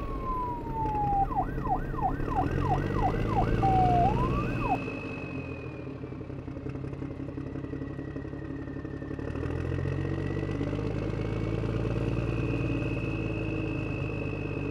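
Police siren sound effect over a vehicle engine running. A slow siren wails throughout, and in the first few seconds a second siren tone falls, then sweeps quickly up and down about seven times. The engine drops away about five seconds in and comes back near ten seconds.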